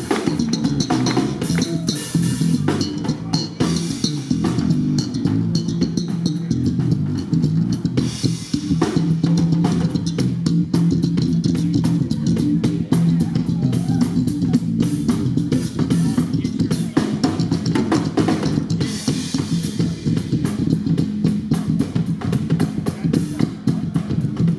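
Band music: a drum kit playing a steady beat over a bass guitar line.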